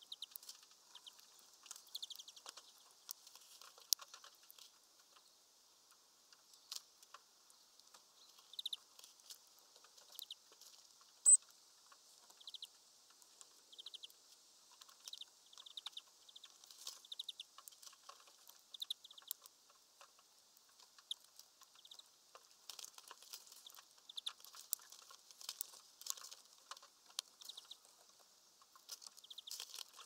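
Small birds at a seed feeder, mainly greenfinches: frequent short, high chirps and twitters, mixed with small pecking clicks. One sharp click about eleven seconds in is the loudest sound.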